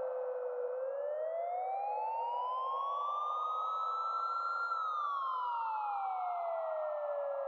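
Police siren heard from a distance in a slow wail: the tone rises for about four seconds, peaks a little past the middle, then falls again, over a steady muffled hiss.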